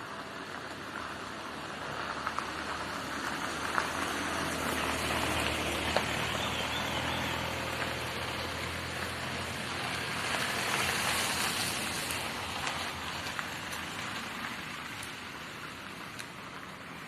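A vehicle going by on the road: tyre noise with a low engine hum that swells over several seconds and then fades, with a few small clicks.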